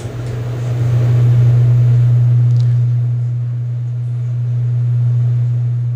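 A steady low-pitched hum, swelling a little about a second in and easing slightly toward the end.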